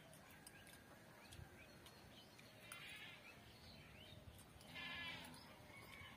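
Faint bleating of livestock, twice: a short call about three seconds in and a longer one around five seconds in.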